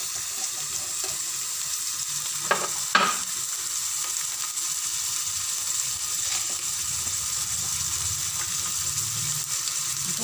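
Chopped onions and cloves frying in refined oil in a steel kadhai, a steady sizzling hiss as the onions are being browned. Two short knocks of the steel ladle against the pan come about two and a half and three seconds in.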